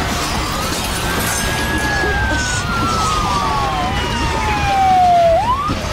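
Several emergency vehicle sirens, those of the arriving fire engines, sounding over a loud steady rushing background. One long wail falls slowly in pitch and swoops sharply back up shortly before the end, while quicker rising and falling yelps overlap it in the middle.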